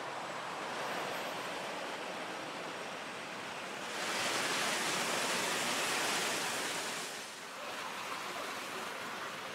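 City street traffic noise, a steady hiss of passing vehicles. It grows louder and brighter for about three seconds from four seconds in as cars pass on the wet road, their tyres hissing on the wet surface.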